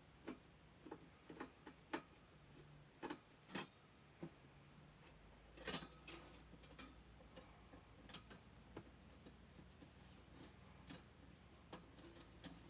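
Faint, irregular small clicks and taps of parts and tools being handled while a mini desk fan is taken apart, about twenty in all at uneven spacing.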